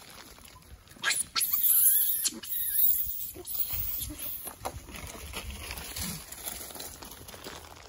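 Macaques squealing and grunting with a few sharp knocks and scuffs. The calls are loudest from about one to three seconds in, then quieter scattered sounds follow.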